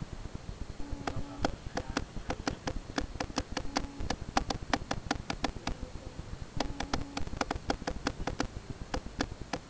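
A rapid series of sharp clicks, about five or six a second, in two runs with a short pause in the middle.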